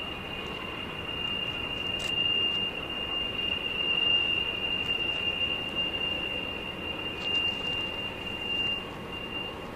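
Freight car wheels squealing as the train rounds a tight curve: one thin, steady, high-pitched tone over the train's even running noise.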